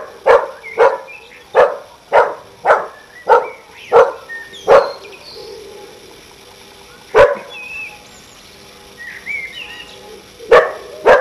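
A dog barking: a fast run of about nine loud, sharp barks, a single bark about seven seconds in, and two more near the end.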